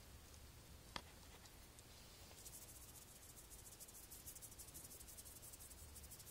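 Near silence: room tone, with a faint click about a second in and then faint, rapid high-pitched ticking from a little over two seconds in.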